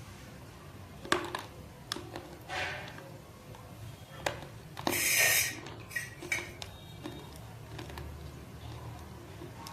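Big chunks of raw multani mitti (Fuller's earth clay) bitten and crunched close to the microphone: several sharp cracks, with a longer gritty crunch about five seconds in.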